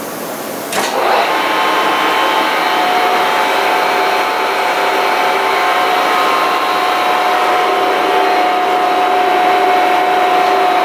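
Dainichi DLG-8 engine lathe started up: a clunk about a second in as the spindle engages, then the headstock runs with the chuck spinning, giving a steady gear whine over the hum of the 7.5 kW main drive motor.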